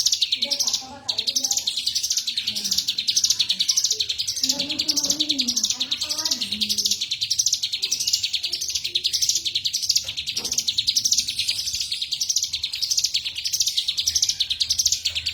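Ciblek gunung (a prinia) singing without pause, a fast high trill that pulses in phrases about twice a second.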